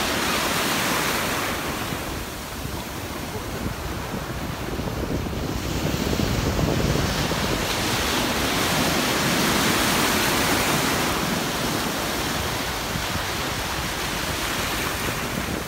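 Ocean surf washing onto the beach, easing off and swelling again over several seconds, with wind rumbling on the microphone.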